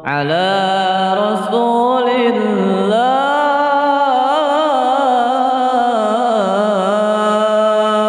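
A young man's solo voice chanting the Arabic blessing on the Prophet in one long, ornamented melismatic phrase, the pitch trilling and wavering. It starts right at the beginning after a brief pause for breath.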